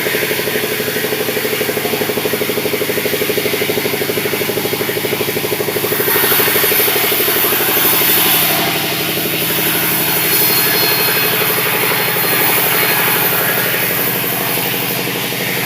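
Sawmill engine running steadily with a fast, even pulse, and a hiss that comes and goes over it from about six seconds in.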